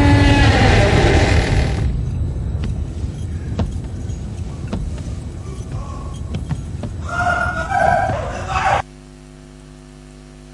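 Prison cell-block ambience: a rumbling din with scattered sharp clicks and knocks, and voices rising near the end. It then cuts off abruptly to a low steady hum.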